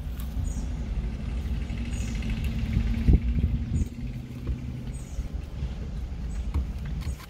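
Steady low rumble of a car idling, heard from inside the cabin, with faint chewing of a crispy fried chicken tender.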